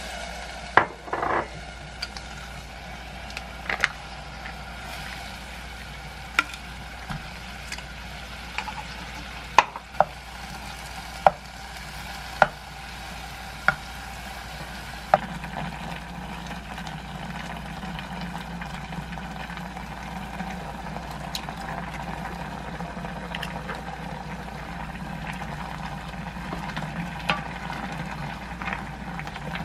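Kimchi soft-tofu stew simmering and bubbling in a saucepan on a gas stove while a spoon stirs it, knocking sharply against the pot several times in the first half. The bubbling grows fuller and steadier in the second half as the stew comes to the boil.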